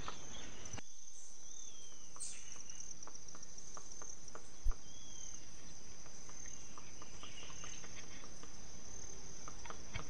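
Faint scattered knocks of a Robust Woodpecker striking dead wood, over a steady high-pitched forest insect chorus. Two short bird whistles come through, and a single sharp low thump sounds about halfway through.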